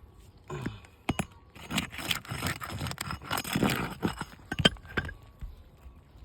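A brittle asphalt 3-tab shingle being pulled out from under the course above, with scraping and crinkling from its gritty surface. A few sharp clicks come about a second in and again near the end.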